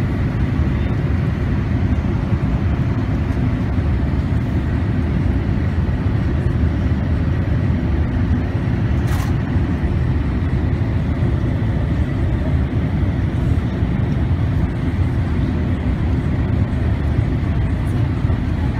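Cabin noise of a Boeing 787 descending on approach, heard from a window seat beside its GE GEnx engine. A steady low rumble of engine and airflow carries a faint thin whine on top, with a single soft click about halfway through.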